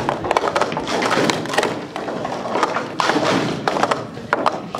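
Plastic sport-stacking cups clattering in rapid clicks and light thuds on the stacking mat as two stackers build cup pyramids and collapse them, with a short lull about two seconds in.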